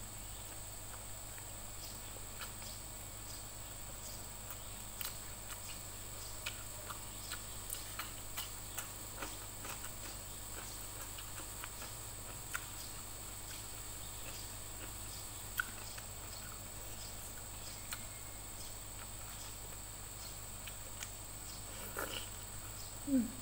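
Quiet eating sounds of fried chicken and rice eaten by hand: scattered small clicks and smacks of chewing and fingers pulling the meat apart, over a steady background hiss. A slightly louder smack with a short low pitched sound comes near the end as a piece goes into the mouth.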